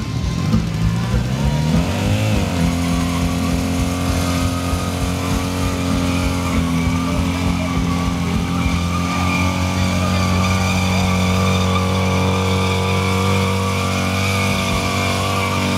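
Motorcycle engine revving up over the first couple of seconds, then held steadily at high revs during a burnout, with the rear tyre spinning against the asphalt.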